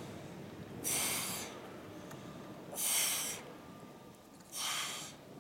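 A woman exhaling hard through her mouth three times, one short hissing breath out with each crunch as she curls up, in a steady rhythm of about one every two seconds.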